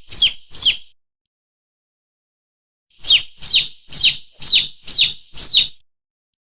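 Lure-call recording for mongooses and monitor lizards: a bird's shrill cries, each sliding quickly downward, about three a second. Three cries come first, then after a gap of about two seconds a run of seven.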